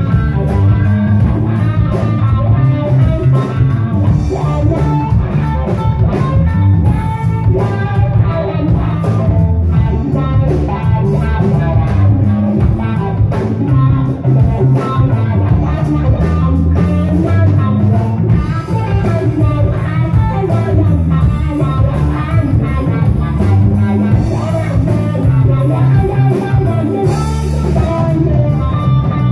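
A live band playing: electric guitar lines over electric bass and a drum kit, with a steady beat.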